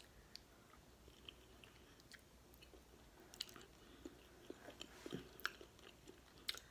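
Faint chewing of beef stew and cornbread: scattered soft mouth clicks and smacks, a little busier past the middle.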